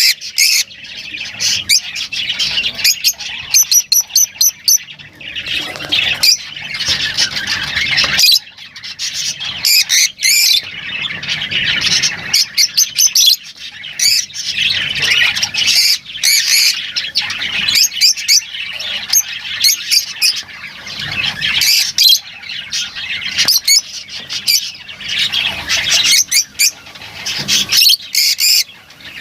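Lovebirds chattering and squawking without pause: a dense stream of short, shrill, rapid calls, several birds overlapping.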